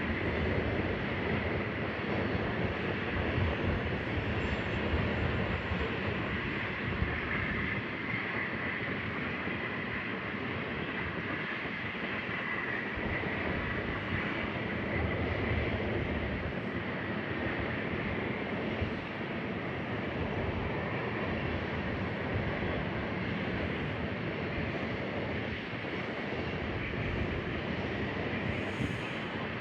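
Grain train rolling along the rails, a steady noise of wheels and cars with a faint, steady high-pitched tone over it.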